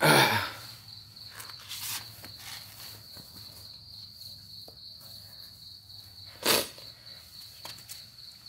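Insects chirring steadily at a high pitch, with a few knocks from the brush cutter's steel blade and gear head being handled, the loudest right at the start and about six and a half seconds in.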